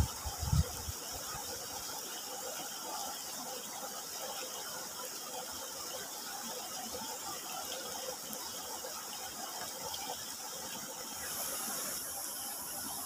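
Steady trickle and hiss of a small shallow stream flowing, with a brief low thump just after the start and a high steady hiss joining near the end.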